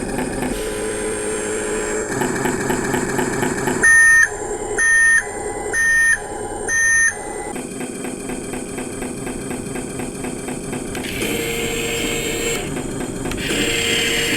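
Electric RC truck running steadily, with four loud electronic beeps about a second apart, like a reversing warning beeper from the truck's sound module.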